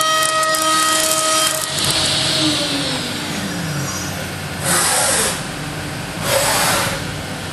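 High-speed milling of aluminium on a milling machine with Iscar cutters, a steady high-pitched cutting whine of several tones that stops about a second and a half in. Then a whine falls in pitch, and two short bursts of hiss follow.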